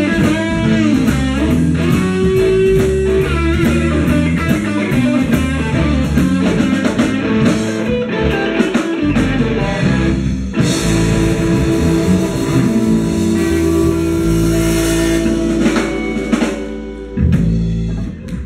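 Live blues band playing: electric guitar over drums and bass. About ten seconds in, the band holds a final chord with cymbals ringing, and closes with a last hit near the end.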